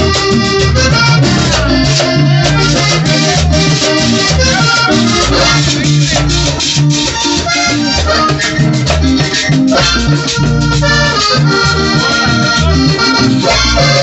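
Live accordion-led Latin American band playing an instrumental passage between sung verses, with bass and shaken percussion keeping a steady beat.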